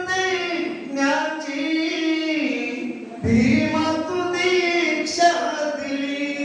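Unaccompanied singing: long held notes that glide up and down in pitch, with no instruments heard.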